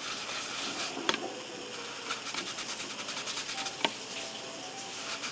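A fine-grit polishing cloth (Mr. Laplos) rubbing lightly over the painted plastic body of a model car, with a quick run of short strokes and two sharp handling clicks.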